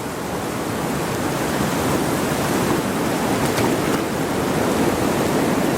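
Strong blizzard wind blowing steadily across the microphone, building over the first second and then holding.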